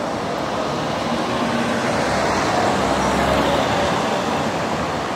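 City street ambience: a steady wash of traffic and street noise, with a vehicle's low rumble swelling about two seconds in and fading again about four seconds in.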